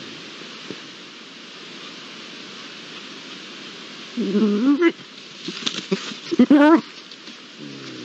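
Iberian lynx calling out of view: two short, wavering yowls rising in pitch, about four and six and a half seconds in, with a few ticks between them, over a steady background hiss.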